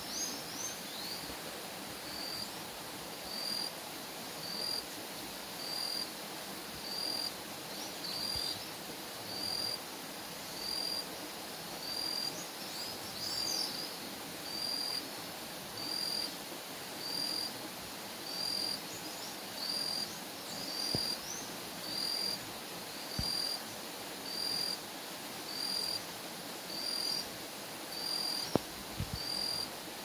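A high, steady call repeated evenly about once a second, with a few short bird chirps in between and a single knock near the end.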